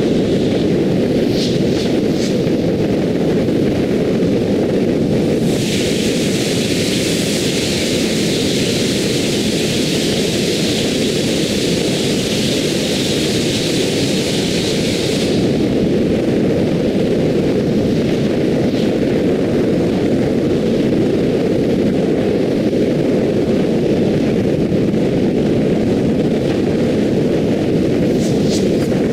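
Steady car road and wind noise at expressway speed, played back four times faster. A higher hiss joins the low noise from about five seconds in until about fifteen seconds in.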